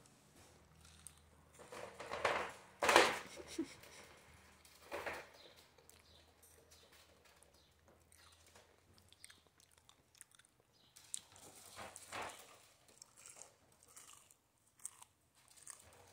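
Wire dog crate rattling and clinking under a ferret's paws as it climbs across the top grid, with a few louder metallic clanks about two to three seconds in and again near five seconds.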